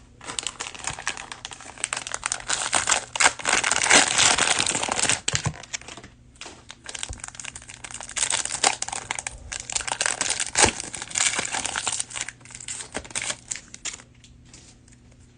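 Plastic wrapper of a trading-card cello pack crinkling as it is torn open and handled, in two stretches of several seconds with a short pause between, quieting near the end.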